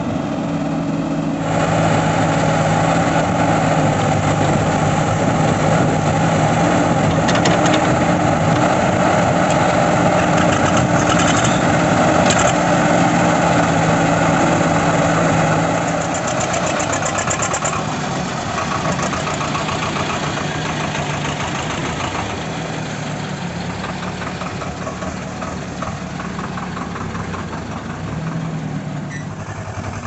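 Diesel engines of a JCB 3DX backhoe loader and a Swaraj 724 XM tractor running steadily, louder for the first half, then dropping somewhat in level about halfway through.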